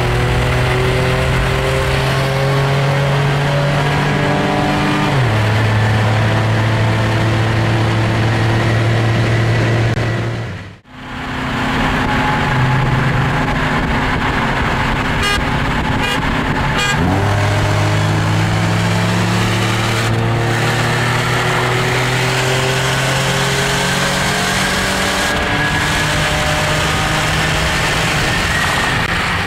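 Car engine under hard acceleration on a highway pull. Its pitch climbs slowly, then drops sharply with an upshift about five seconds in and again about seventeen seconds in. The sound breaks off for a moment near eleven seconds.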